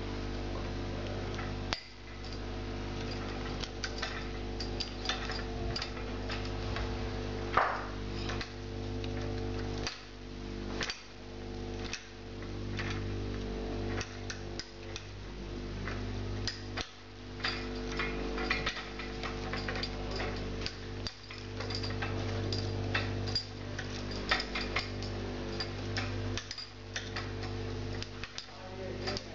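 Irregular clicks and clinks of metal lamp parts being handled and twisted apart: the pull-chain socket, its swinging ball chain and the metal stem. A steady low hum runs underneath.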